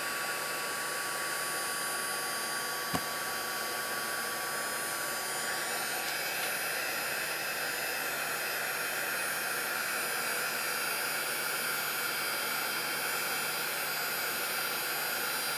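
Electric craft heat gun blowing hot air steadily while heat embossing, melting embossing powder on a canvas tag. A single click about three seconds in.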